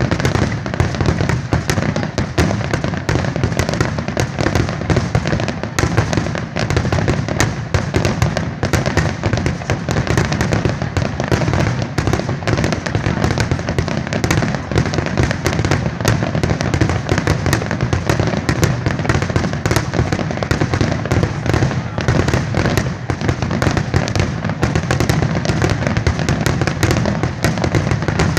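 Rapid-fire barrage of fireworks, shell bursts and crackles following one another so closely that they run together into a continuous loud rumble.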